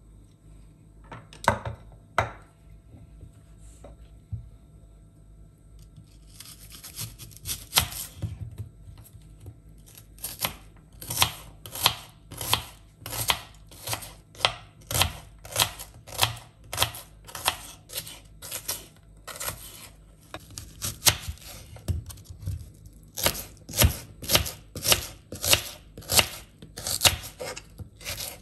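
Kitchen knife slicing peeled onions on a bamboo cutting board: the blade knocks on the board in a steady rhythm of about three cuts every two seconds, with a couple of lone knocks before the run starts and a brief pause near the end.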